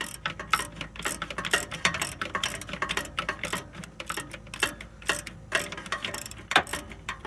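Ratchet wrench clicking in quick irregular runs, several clicks a second, as the starter mounting bolts are turned in.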